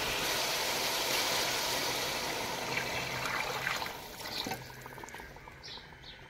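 Water pouring in a steady stream into a metal karahi of fried chickpeas and masala, a continuous splashing rush that dies down after about four seconds.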